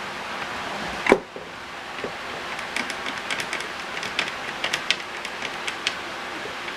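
Handling of an old power supply's metal case and parts: one sharp knock about a second in, then a string of small clicks and taps over a steady background hiss.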